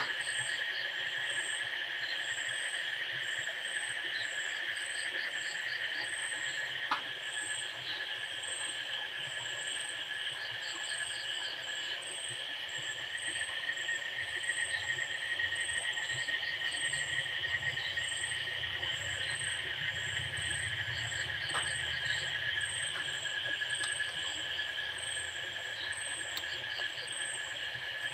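Night insects calling: crickets chirping in a regular rhythm over a continuous high-pitched buzzing drone, with one faint click partway through.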